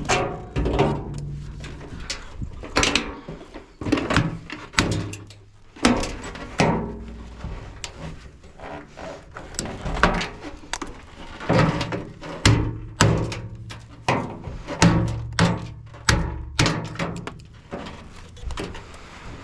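Background music with a beat and sustained bass notes, over scattered knocks and clunks from a washing machine being dismantled for scrap.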